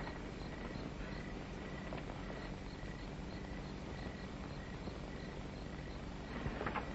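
Crickets chirping in an even, steady rhythm over the hiss and low hum of an old film soundtrack.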